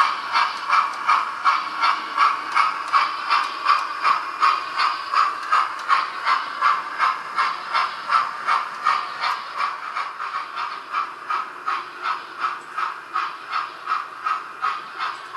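Model steam locomotive chuffing at a steady beat, about two to three chuffs a second, over a hiss.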